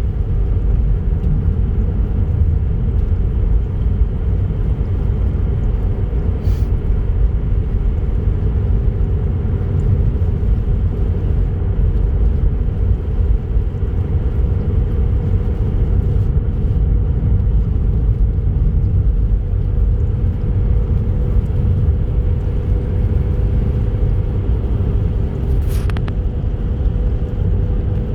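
Car driving at road speed on a highway: a steady low rumble of tyres and engine, with a faint steady hum above it.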